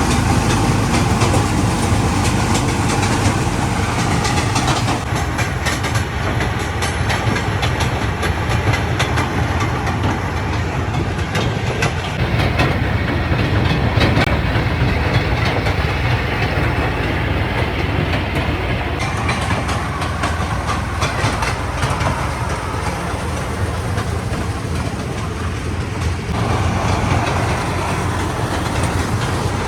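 Vehicle engine running steadily while a towed trailer rattles and clatters continuously along the way.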